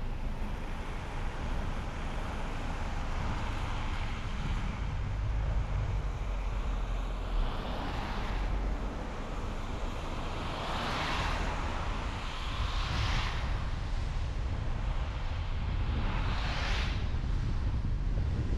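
Car driving along a road: steady low rumble of tyres and engine, with four whooshes of other vehicles passing by that swell and fade, the last near the end.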